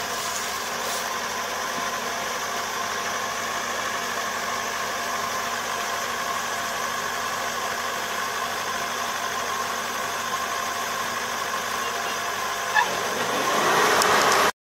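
Rice combine harvester running steadily, its engine and machinery making an even hum with a few thin steady whining tones. A single click near the end, then the sound swells louder and cuts off suddenly.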